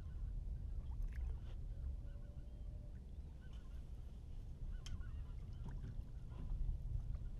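Steady low wind rumble on the microphone over open water, with faint bird calls and a few light clicks.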